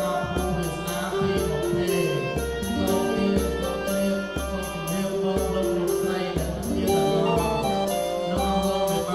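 Background music: a sustained melody over a low bass note that returns about once a second.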